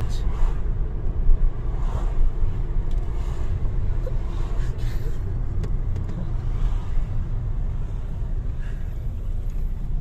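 Steady low rumble of a car's engine and tyres heard from inside the cabin while driving, with a few faint clicks.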